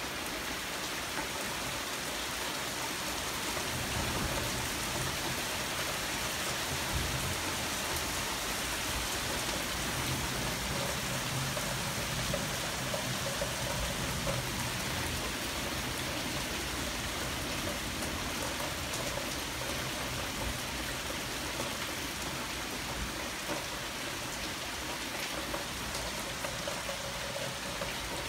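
Heavy rain pouring steadily during a thunderstorm, with a low rumble under it from about four seconds in until about halfway.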